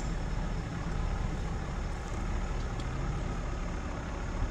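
Pickup truck driving slowly across a grass field: a steady low rumble of engine and rolling noise, close up from a camera on the hood.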